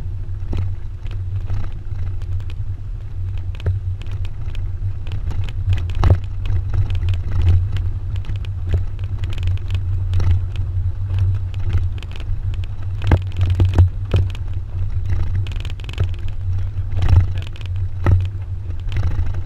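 Pickup truck driving, heard from its open cargo bed: a steady low rumble of engine and road, with frequent sharp knocks and rattles.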